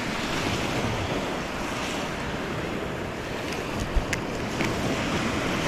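Small waves breaking and washing up a sandy beach in a steady rush of surf, with wind on the microphone. A couple of brief clicks about four seconds in.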